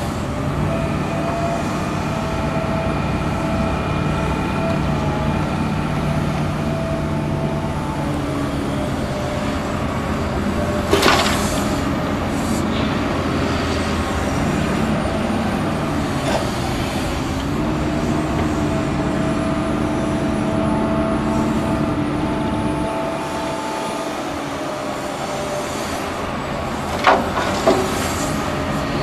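Hitachi Zaxis 350 excavator's diesel engine and hydraulics working steadily under load, the engine note shifting in pitch as the machine digs and swings. A sharp knock comes about 11 seconds in and two more near the end, as the bucket swings over the steel dump-truck body.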